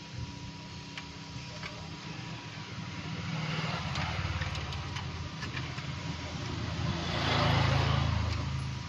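A motor vehicle's engine passing by, building from about three seconds in, loudest near the end, then easing off. Under it runs a steady low hum, with a few light clicks in the first two seconds.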